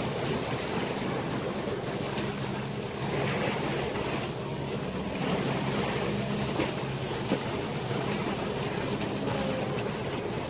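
Sea water rushing past the bow of a sailing catamaran under way, with wind buffeting the microphone: a steady hiss with two faint ticks about seven seconds in.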